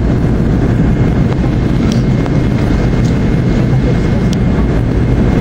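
Steady, loud cabin noise of an MD-80 airliner in flight: a deep rumble of airflow and its tail-mounted Pratt & Whitney JT8D turbofans, with a faint thin whine above it.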